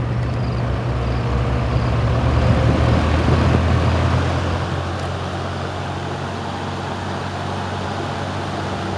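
GE three-blade box fan running on high speed: a steady rush of air over a low motor hum. It runs smoothly and pretty quiet.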